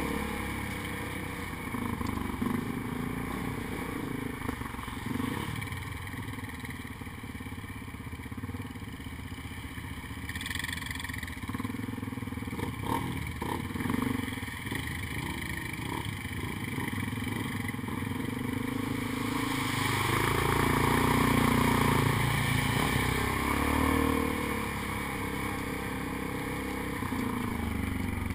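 ATV engine running as the quad rides a bumpy dirt trail, its pitch wandering with the throttle. It gets louder and rises about twenty seconds in, then eases back, and a few knocks from the bumps come about halfway through.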